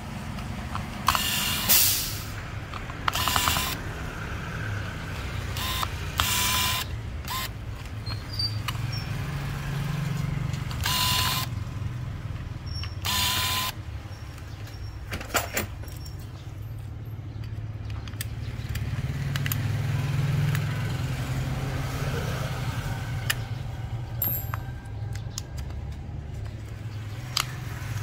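Cordless electric screwdriver whirring in about five short bursts as it backs out small screws from a two-way radio's circuit board. After that come scattered small clicks of screws and parts being handled, over a low steady hum.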